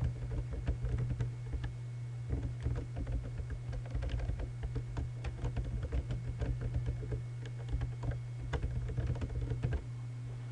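Typing on a computer keyboard: a quick, uneven run of key clicks that stops near the end, over a steady low hum.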